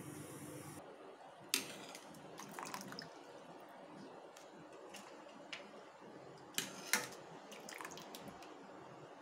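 Steel ladle clinking against a steel pot and plate as boiled vegetables are scooped out, with liquid dripping and splashing. A steady hum stops just under a second in; the sharpest clinks come about a second and a half in and twice close together near seven seconds.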